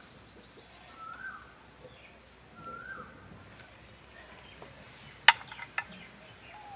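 A bird calling, a short rising-then-falling note repeated about every one and a half seconds. About five seconds in, a sharp click and a few lighter knocks as a spoon is set down on the tray.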